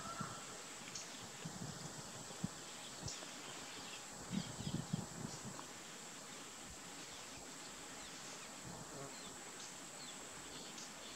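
Grassland field ambience: a steady hiss, likely insects, with scattered faint chirps and a few soft low thuds about four to five seconds in.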